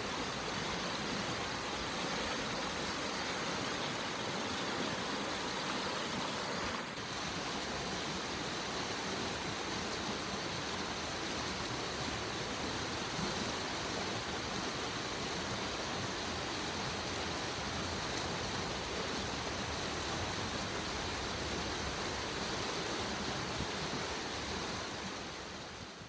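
Shallow mountain river rushing over rocks and gravel: a steady, even rush of water that shifts slightly about seven seconds in and fades out at the end.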